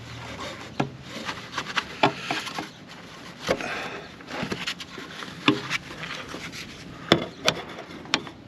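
Scattered knocks and clicks with rubbing as a rubber exhaust hanger ring on a Mercedes W201 190D is worked by hand onto its hook under the car.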